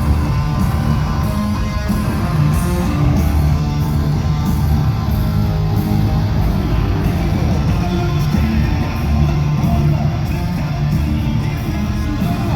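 Live hard rock band playing loudly, a distorted electric-guitar riff over bass and drums, with no vocals.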